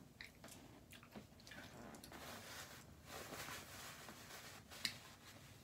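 A person chewing a mouthful of taco, with soft irregular mouth smacks and one sharper click near the end.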